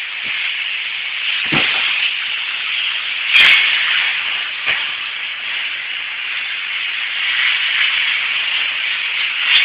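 Vacuum cleaner running with a steady hissing whine, with three short knocks, the loudest about three and a half seconds in.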